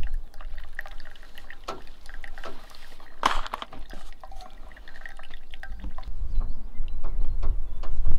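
Hot water poured from a gooseneck kettle onto coffee grounds in a paper filter. Brewed coffee drips through a folding steel pour-over dripper into a metal tumbler in many small ticks, with one louder splash about three seconds in.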